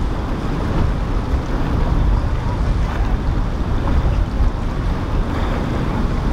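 Sunseeker motor yacht under way at speed: the steady rush of its bow wave and wake with a low rumble, and wind buffeting the microphone.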